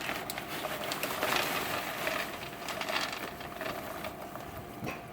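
Opened paper microwave-popcorn bag rustling and crinkling as it is handled, with fine crackling clicks that ease off near the end.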